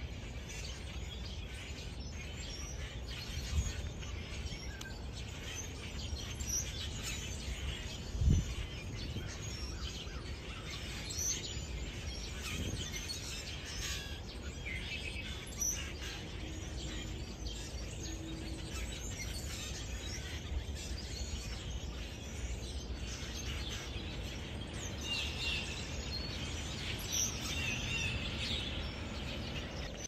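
Many small winter songbirds chirping and calling, a busy run of short chirps over a steady outdoor hiss, with a single low thump about eight seconds in.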